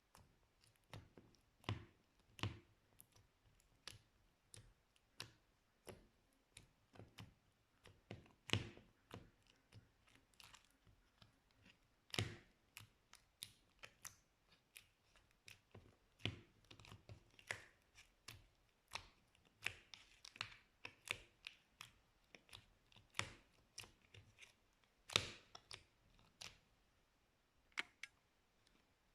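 Slime being pressed and worked by hand, giving irregular small clicks and pops, a few a second, some louder than others.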